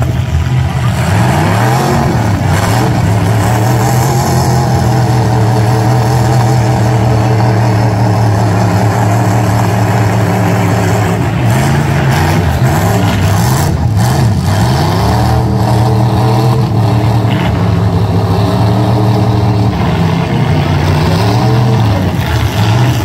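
Truck engines revving hard in a demolition derby, the pitch climbing and holding high for long stretches, dropping briefly about two-thirds of the way through and again near the end. A couple of sharp bangs come about halfway through.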